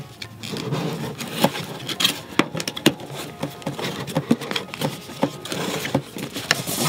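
Cardboard box being handled and opened: scraping and rubbing of the cardboard, broken by many small knocks and taps.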